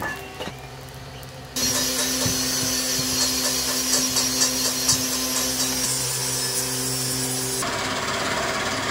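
A metal ladle scraping and stirring through a crucible of molten scrap aluminium and dross. A steady machine hum runs underneath. The sound changes abruptly about a second and a half in and again near the end.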